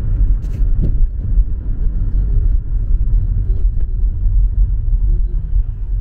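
Steady low road and engine rumble heard inside the cabin of a moving car.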